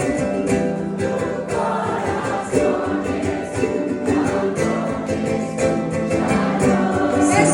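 Live band playing a song, with many voices singing along together like an audience joining the chorus.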